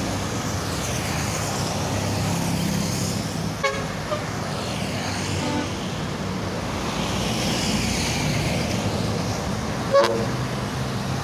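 Steady traffic noise from passing vehicles, broken by a few short horn toots around four seconds in and a louder, brief horn blast near the end.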